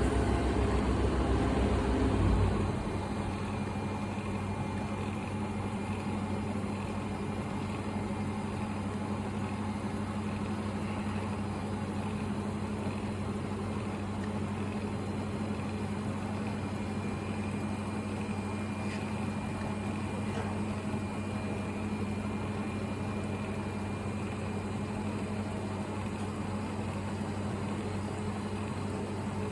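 Steady hum and buzz of a TIG welding run in progress. A louder low rumble in the first two seconds or so drops to an even level.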